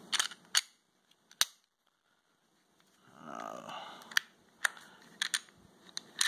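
Sharp metal clicks and a short scraping of steel on polymer as a Glock 42 pistol's slide is worked back onto its frame over the recoil spring. There are a few clicks near the start, a scrape about three seconds in, then more clicks.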